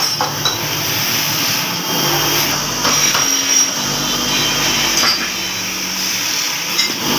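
A motor-driven workshop machine running steadily, with a few light knocks.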